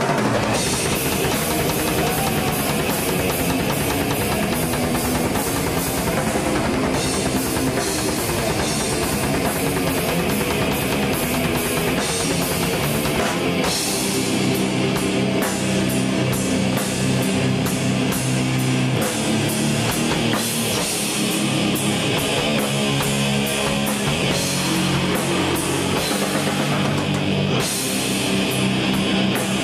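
Death metal band playing live at full volume: fast, pounding drums and cymbals under distorted electric guitars.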